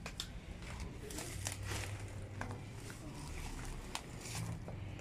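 Irregular footsteps crunching through dry weeds and debris, with scattered crackles and snaps over a low rumble.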